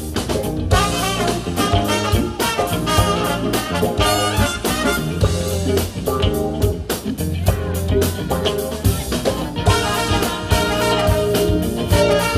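Live horn section of trombone, saxophone and trumpet playing together over a band with bass guitar and drum kit, the drums keeping a steady beat under the horn lines.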